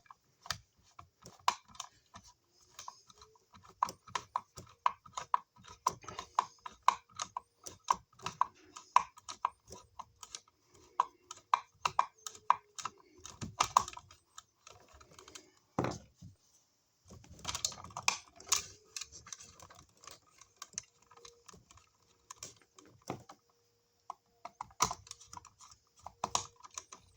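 Small, rapid clicks and taps of a screwdriver and a wall receptacle being handled as the outlet is unscrewed from its electrical box, with one duller knock just past the middle.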